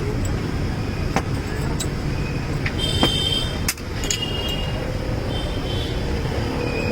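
Steady rumble of street traffic, with a few sharp clicks and some brief high tones about halfway through.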